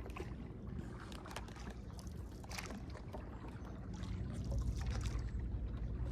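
Boat motor running with a steady low hum that grows louder about four seconds in, with small splashes and knocks of water against the hull.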